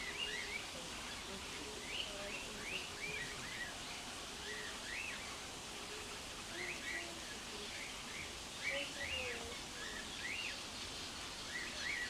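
Small birds chirping: many short, quick chirps that rise and fall in pitch, scattered a few each second, over a steady background noise.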